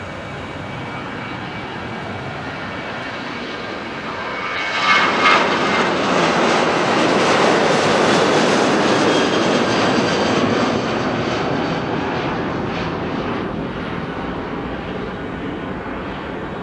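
Boeing 737 twin jet engines at takeoff thrust as the airliner climbs out overhead. A rushing jet roar swells about four seconds in, is loudest as the jet passes over, and slowly fades as it climbs away.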